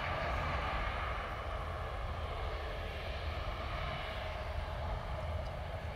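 Jet engines of an Airbus A350 taxiing at low power: a steady engine hum and whoosh that eases slightly after about four seconds.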